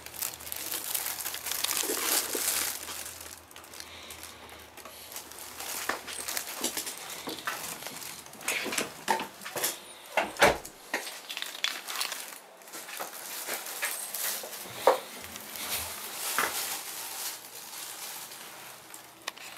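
Irregular rustling and crinkling with scattered light clicks and knocks, and one sharper knock about ten seconds in.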